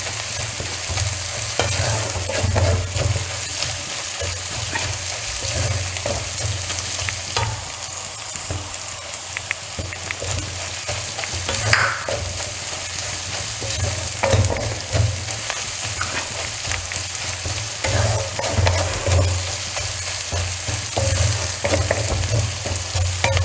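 Sliced onions with crushed ginger and garlic sizzling in hot coconut oil in a kadai over a raised flame, with a spatula stirring and scraping now and then. A low hum runs underneath.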